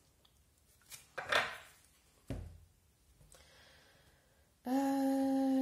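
A woman humming a single steady held note, starting suddenly near the end. Before it there are only a soft swish about a second in and a brief low knock a little after two seconds.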